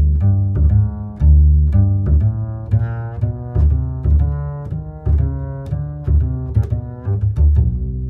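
Background music: a tune of short notes with sharp attacks, played over a deep bass line, with new notes every half second or so.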